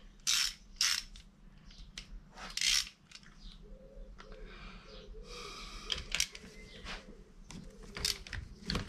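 Steel hand tools clinking and rattling as a 5/16 Whitworth socket and extension are picked up and fitted onto a cylinder-head nut. Several separate clinks in the first few seconds, a rattling stretch in the middle, and a run of short sharp clicks near the end.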